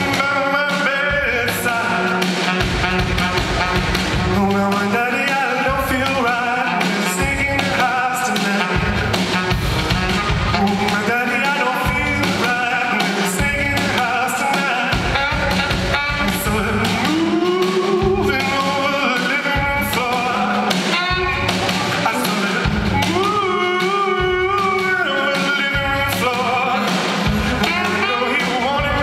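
Live band performing a song: a singer's voice over piano and a steady beat.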